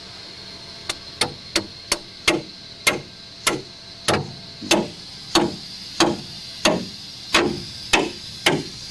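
Hammer driving a 2-foot length of rebar into the ground through a pre-drilled hole at the foot of a pool wall panel: a steady run of sharp ringing blows, a little quicker at first, then about three every two seconds.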